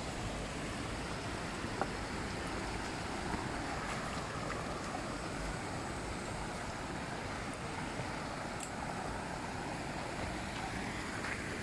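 Steady rushing wind and road noise on the microphone while riding, with a few faint clicks.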